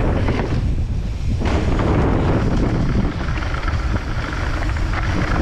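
Wind rushing over the microphone of a camera riding on a mountain bike descending a stony dirt trail, over a rough rumble of tyres on loose gravel. The hiss eases briefly about a second in, then picks up again.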